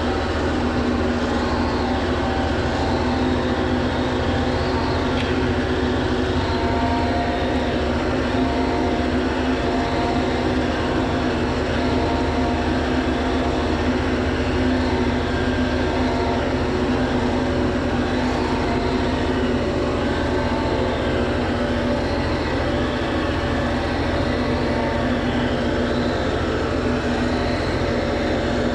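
County tractor's diesel engine and Twose flail hedge trimmer running together: a steady, even machine drone with no pauses or knocks.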